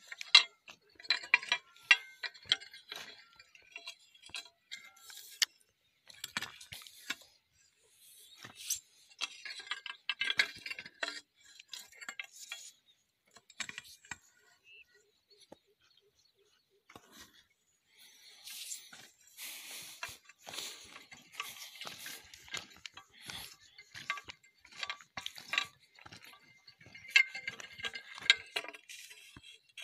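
Metal blade of a long-handled hoe scraping and chinking through dry, stony soil in repeated strokes: clusters of sharp clicks and scrapes, with a pause about halfway through.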